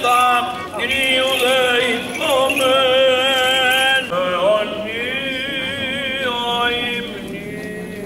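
Greek Orthodox liturgical chant sung by male voices, in long held notes with wavering ornaments, while the small bells of a swung censer jingle.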